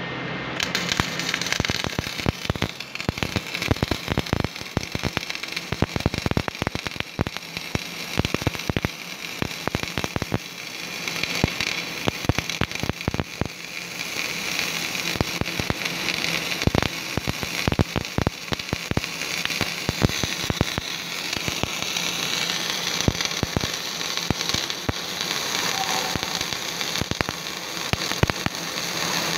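MIG welding arc crackling and sputtering steadily as a bead is laid, starting about a second in.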